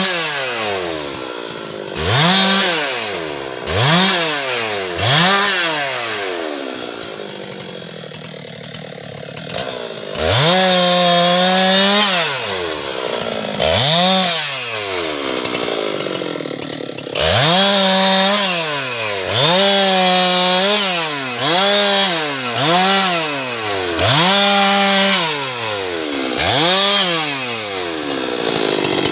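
Husqvarna 390 XP two-stroke chainsaw revved over and over, with short throttle blips and a few longer holds at full speed, dropping back between them. It runs quieter for a few seconds partway through.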